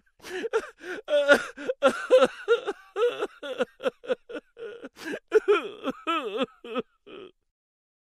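A person's voice making a string of wordless vocal sounds, some drawn out, with a wavering pitch near the end. It stops about seven seconds in.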